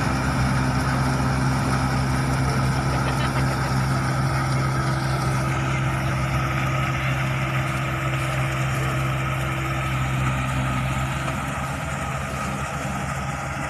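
Engine of a rice harvesting machine running steadily, a constant low drone with a strong hum. About five seconds in, the higher hiss drops away, and the level eases slightly near the end.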